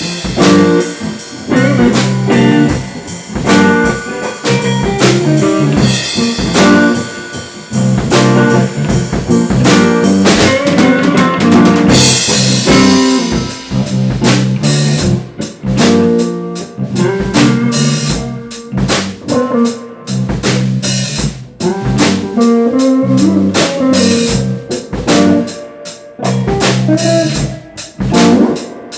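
A garage band jamming: a drum kit keeps a steady beat under electric guitar and bass lines, with a cymbal wash about twelve seconds in.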